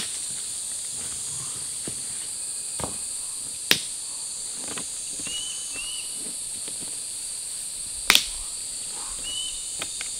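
Steady high-pitched insect chorus of crickets or cicadas, with a few sharp knocks, the loudest about four and eight seconds in, and three short high chirps.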